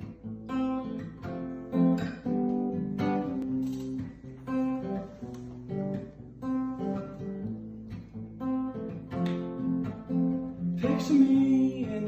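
Acoustic guitar strummed, a new chord struck about every second, playing the song's opening before the vocal.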